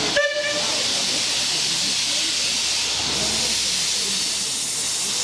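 Small narrow-gauge steam locomotive letting off steam: a steady hiss that starts just after a very short pitched sound at the start, and grows brighter about three seconds in.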